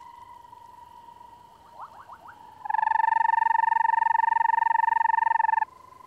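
Banded rubber frog calling: one loud trill lasting about three seconds, starting about two and a half seconds in. A faint steady high tone runs underneath, with a few short rising chirps just before the trill.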